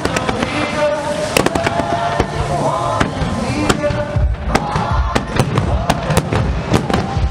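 Fireworks exploding in quick, irregular succession: many sharp bangs and crackles over a continuous low rumble.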